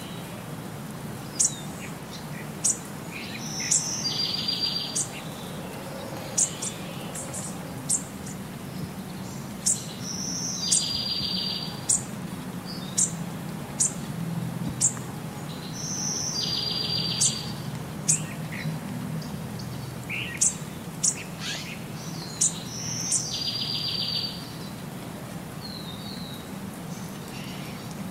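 Birds singing: short, sharp, high chirps about once a second, with a buzzy trill coming back about every six seconds, over a low steady background hum.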